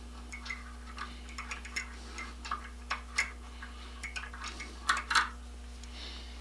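Irregular light metallic clicks and ticks of small hand tools being worked at a bench, likely a tap handle turning a tap or Heli-Coil insert into a threaded hole. A couple of louder clicks come about five seconds in, over a steady low hum.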